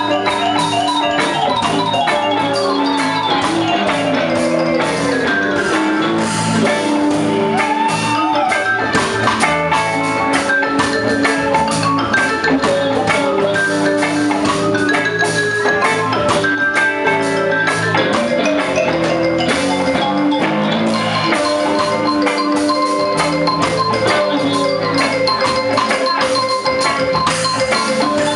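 Live rock band playing an instrumental passage of busy, rhythmic music, with guitar and keyboards and a bright, mallet-like melody on top. A fast run falls in pitch a few seconds in.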